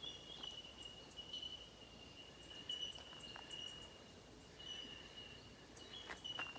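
Faint Australian bush ambience: a steady high insect trill runs throughout, with scattered short bird chirps over it.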